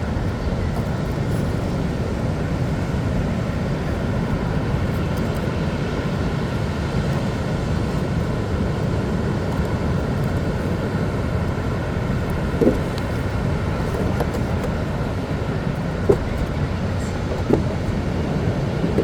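Wind buffeting the microphone: a steady low rumble, with a few faint brief sounds in the second half.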